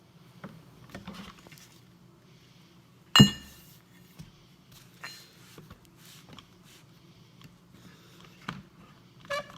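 Steel tools being handled on a work table: scattered light clicks and knocks, and one sharp metal clank about three seconds in that rings briefly.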